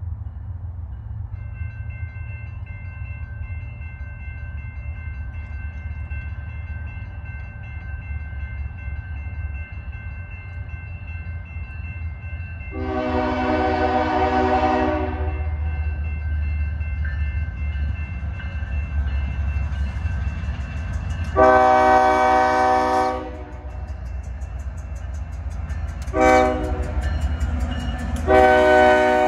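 A Union Pacific GE C45ACCTE locomotive's air horn sounds the grade-crossing signal as the train approaches: two long blasts, one short, then a long one. A steady low rumble runs underneath.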